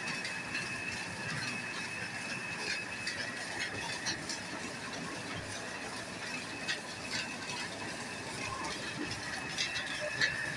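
A 4-bolt mustard oil expeller (screw press) running steadily while it presses mustard seed. It gives a constant mechanical noise with a steady high whine and scattered light clicks and ticks.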